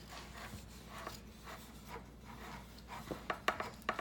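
Faint rubbing and handling sounds from fingers greasing metal muffin-tin cups with butter, with a few light clicks and knocks near the end.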